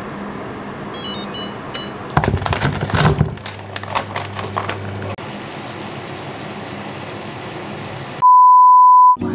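An induction hob's touch controls beeping a quick run of short high tones. Then dumplings knock and clatter into an oiled frying pan and a steady sizzle follows. Near the end there is one loud steady beep lasting about a second.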